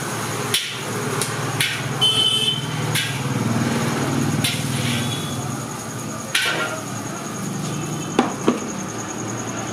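A metal spatula or ladle knocking against a steel wok, with about eight sharp, irregular strikes, one ringing briefly about two seconds in and two in quick succession near the end, over a steady low background hum.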